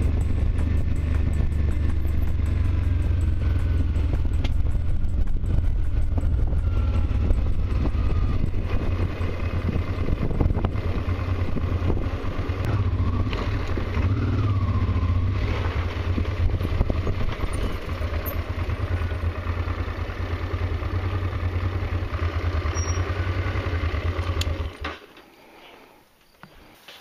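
Honda Transalp's V-twin engine running while the motorcycle is ridden slowly, with wind noise on the microphone; the engine cuts off near the end, leaving a few small clicks.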